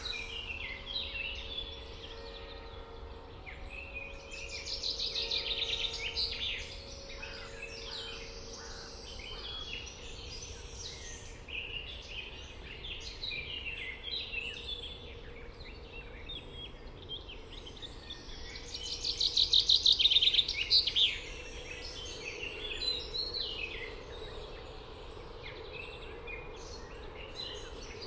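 Several songbirds singing at once, a mix of short high chirps and whistles. One bird gives a loud, rapid trill twice, about five seconds in and again near twenty seconds.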